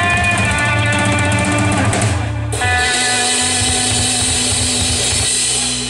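Live instrumental rock band: electric guitar playing a melodic line over bass guitar and drum kit. About halfway through there is a brief break, then the band holds a long sustained chord with cymbals ringing.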